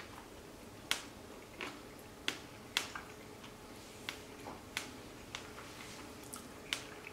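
Someone chewing a bite of soft bread with hummus, with sharp mouth clicks and smacks at irregular intervals, roughly one or two a second.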